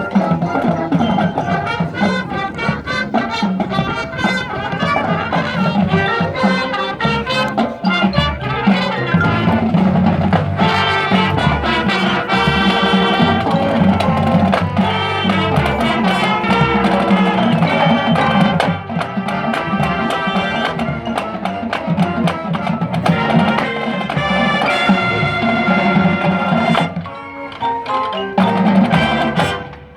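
High school marching band playing: brass and drum line together, dense and loud, with a brief drop about 27 seconds in before a loud final held chord that cuts off at the very end.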